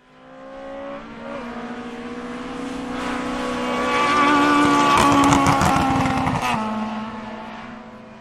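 Race car engine passing by at speed. It swells in, is loudest about five seconds in with a rasping crackle, drops in pitch as it goes past, then fades away.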